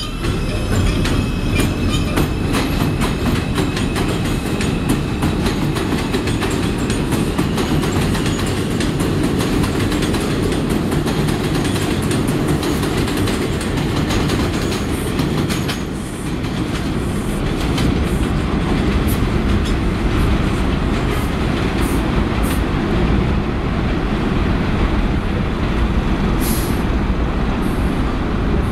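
R142 subway train accelerating out of the station and running past on the outdoor track, its wheels clacking rapidly over the rail joints. About halfway through, the clacking thins out and the train's rumble carries on as it moves off down the line.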